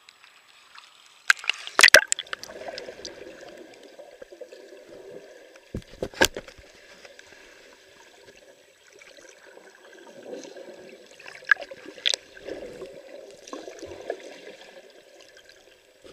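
Water splashing over a waterproof camera as it goes under about two seconds in, then the muffled, gurgling sound of water heard from just below the surface, with a few sharp clicks.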